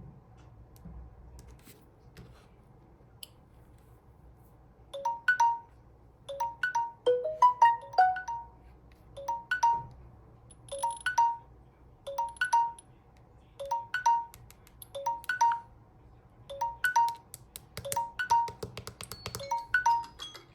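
Samsung Galaxy phone playing a chiming ringtone. It starts about five seconds in and repeats a short phrase of bright notes about every second and a half.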